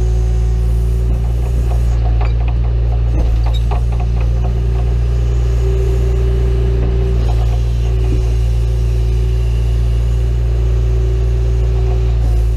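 John Deere 310E backhoe's diesel engine running steadily, with a held whine above it. A run of short clicks and knocks comes between about two and four seconds in.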